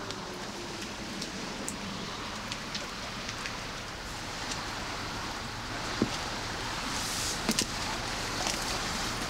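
Steady, even hiss of outdoor night ambience with scattered faint clicks, and two sharper knocks about six and seven and a half seconds in.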